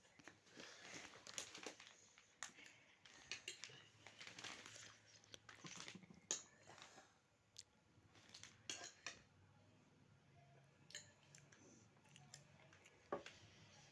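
A person eating chicken macaroni: faint chewing with scattered small clicks and crunches.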